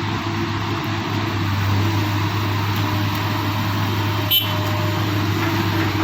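Excavator's diesel engine running steadily, with one sharp knock about four seconds in.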